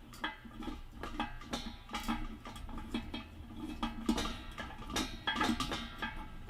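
Repeated light knocks, clicks and scrapes of stainless-steel water-filter parts being handled and fitted by hand, as stoppers and fittings are pushed into the filter chamber's holes.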